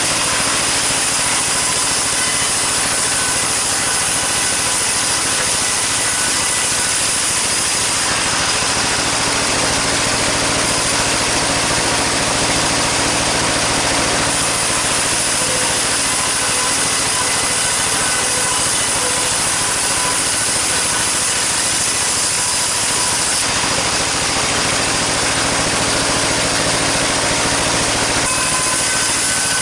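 Sawmill saw running and cutting sengon timber lengthwise into boards: a loud, steady machine drone mixed with the noise of the blade in the wood. The cutting sound shifts in tone a few times.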